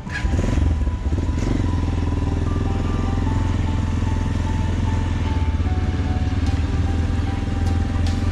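Motorcycle engine pulling away from a stop, rising in pitch over the first second and then running steadily at low speed.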